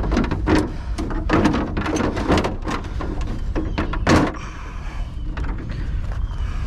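Hard parts being handled during hand dismantling of scrap: a quick run of knocks and clatter, ending in a heavier thunk about four seconds in, then a few lighter ticks.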